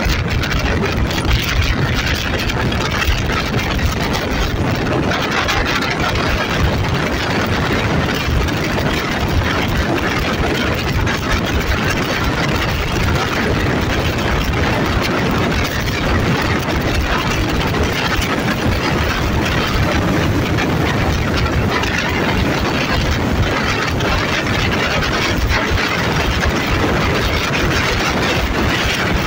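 Alsthom diesel-electric locomotive 4135 running steadily, its engine heard from the carriage coupled right behind it under a dense, even rushing noise.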